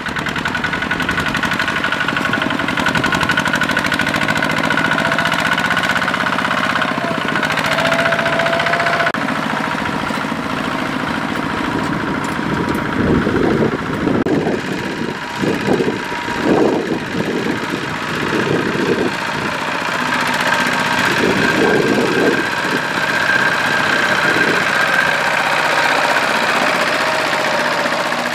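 Single-cylinder diesel engine of a two-wheel walking tractor running steadily as it pulls a loaded trailer through mud. Through the middle stretch its sound swells and dips unevenly.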